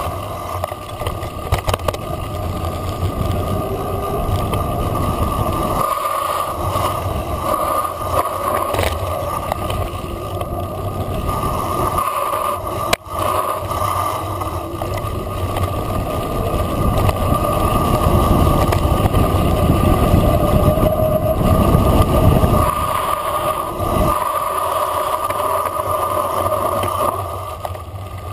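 Mountain bike rolling fast downhill on a dirt track: wind buffets the on-bike camera's microphone and the tyres rumble over the loose surface. A few sharp knocks come from the bike jolting on bumps.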